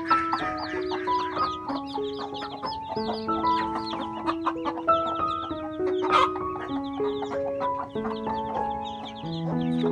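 Domestic chicks peeping constantly in quick high chirps, over background music of slow held notes.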